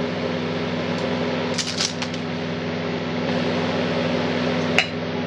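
A steady mechanical hum with a few light metallic clinks about two seconds in and a single sharp click near the end.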